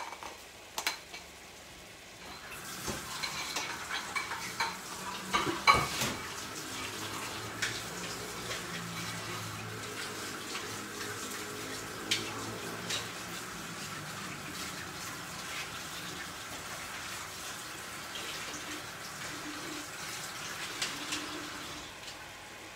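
Kitchen tap running while crabs are rinsed in the sink, with scattered clinks and knocks of shells and dishes against it. The water starts about two and a half seconds in and stops near the end.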